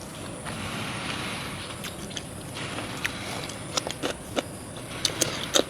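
Someone eating marinated raw shrimp: scattered light clicks and taps over a steady hiss, coming more often in the last two seconds.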